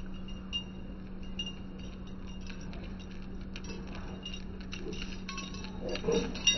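A dog's collar tags clinking as it trots, the clinks coming more often as it nears, over a steady low hum.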